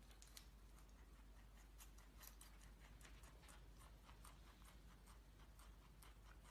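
Faint, irregular crisp clicks and crackles, a few a second, from a small pet animal such as a hamster or rabbit.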